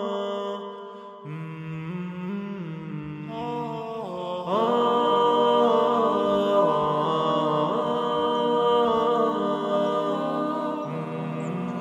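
Background vocal music: several layered voices chanting and humming long held notes without words, a cappella, growing louder about four and a half seconds in.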